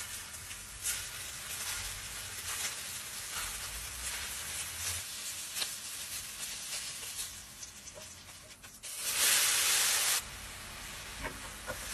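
Chicken balls sizzling in hot oil in a cast-iron skillet, with light clicks of metal tongs turning them. About nine seconds in there is a louder burst of sizzling for about a second as chopped onion and garlic go into the hot pan.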